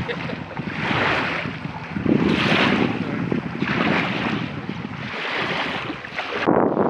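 Water washing and splashing around a small unmanned surface vessel moving through choppy water, with wind on the microphone; the noise swells and fades about every one and a half seconds.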